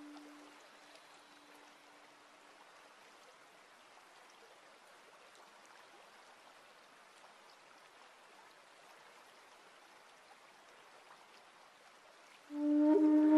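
Faint, steady running water of a small garden stream trickling over stones. A lingering low musical tone fades out in the first few seconds, and loud flute music comes in near the end.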